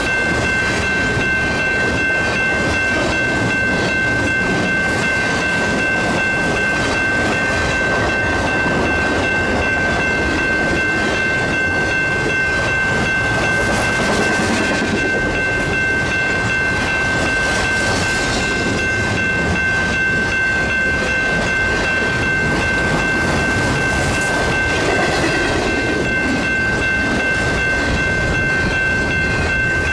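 A fast BNSF Z train, a priority intermodal freight, rolling past at speed: a steady rumble and clatter of wheels on rail, with a steady high-pitched whine held throughout.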